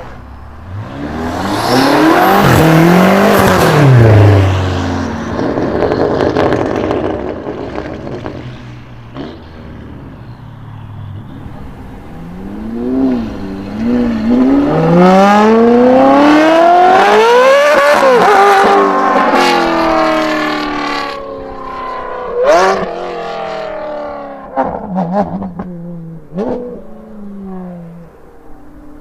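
Modified car engine revving hard and accelerating, its pitch climbing steeply and falling back twice, with a few sharp exhaust pops and cracks near the end.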